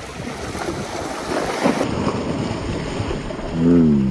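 Wind buffeting the microphone over small waves lapping and splashing against shoreline rocks. Near the end a short low hum, dipping then holding its pitch, is the loudest sound.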